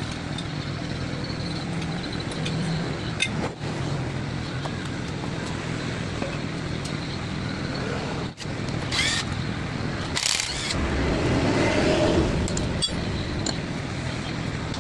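Steady vehicle and traffic-type background noise with scattered light clicks. Two short hissing bursts come a little past the middle, and a louder low rumble follows.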